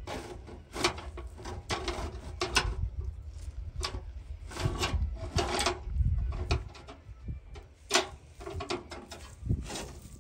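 A steel wire rope is being wrapped around the metal hooks and wooden stakes of an overturned farm trolley, knocking and scraping against them in irregular clanks.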